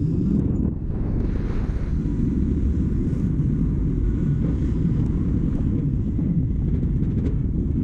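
Steady wind buffeting the microphone, mixed with a low rumble of road traffic.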